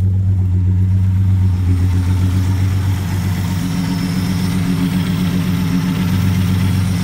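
1960 Plymouth Valiant's straight-six engine idling steadily, its exhaust open and loud because it has no muffler.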